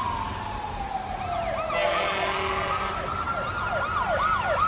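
Fire truck siren wailing, falling in pitch and then slowly rising again. From about two seconds in, a second siren joins with fast up-and-down yelps at about three a second.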